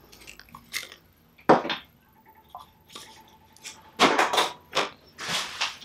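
Pliers squeezed on a strip of leather and handled at a workbench: scattered sharp clicks and knocks, with a louder clatter of several knocks about four seconds in.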